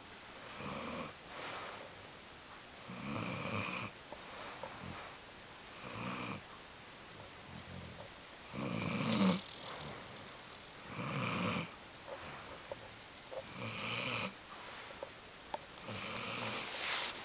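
A dog snoring in its sleep: a rough snore about every two and a half to three seconds, some seven in a row.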